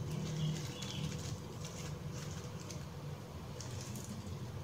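Knife slicing napa cabbage leaves on a plastic cutting board: a few soft, crisp cuts, over a low steady hum.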